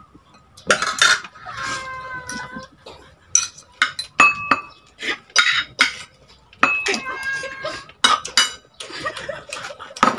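Spoon and fork clinking and scraping against a plate and a metal serving bowl during a meal, many sharp clinks. Several times an animal gives a short, steady-pitched call of about a second.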